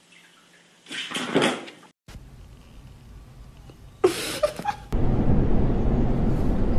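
A short clattering noise about a second in. Around four seconds in comes a brief vocal sound from a husky. From about five seconds on there is the steady noise of a subway train car running.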